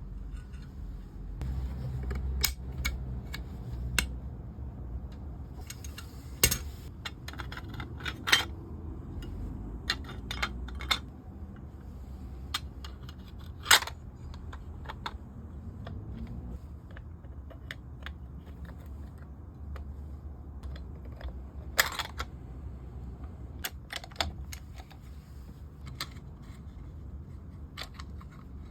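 Irregular sharp clicks and taps of small hard parts being handled and set down, a few of them louder, over a steady low hum.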